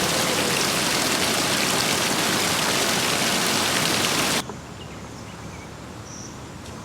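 Steady, loud rushing water noise, even at every pitch, that cuts off suddenly about four and a half seconds in, leaving a much quieter outdoor background.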